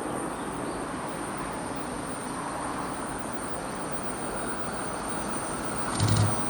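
Train running along the line, a steady rumble of wheels on rail. Near the end there is a brief louder clatter.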